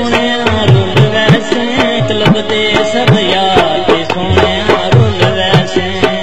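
Instrumental passage of a Saraiki folk song: a hand drum plays a quick, steady rhythm with bass strokes that bend down in pitch, under a sustained melodic instrument.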